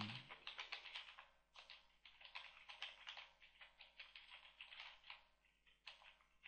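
Typing on a computer keyboard: a quick, irregular run of faint keystrokes with a short pause about a second and a half in.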